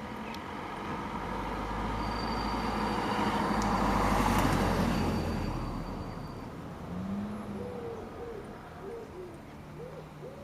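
A road vehicle passing by: a low rumble and rushing noise that builds, peaks about four seconds in and fades away. Then a pigeon cooing, a few soft arched coos over the last few seconds.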